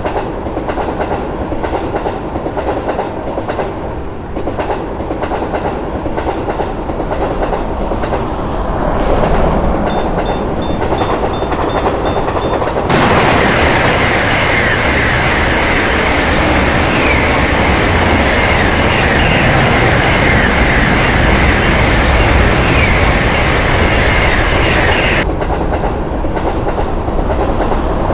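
Train passing with a steady rumble and the clickety-clack of its wheels over rail joints. About halfway through, a loud high-pitched tone joins the rumble and stops a few seconds before the end.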